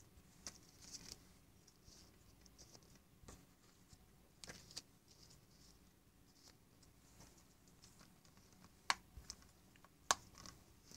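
Faint handling noise of a plastic Blu-ray case: scattered light clicks and scratchy rustles, with two sharper clicks near the end.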